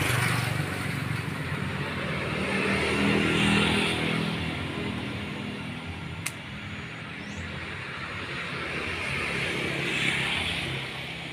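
Motor vehicles passing by, their noise swelling and fading, loudest about three seconds in and again near the end. A single sharp snip of pruning shears cutting a grape stem sounds about six seconds in.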